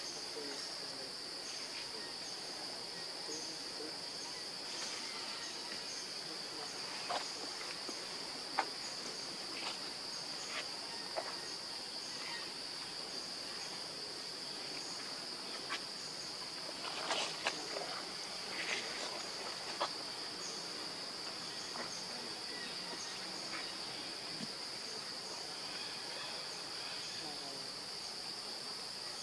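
Steady high-pitched drone of insects, with a scattered handful of short clicks and small chirps over it.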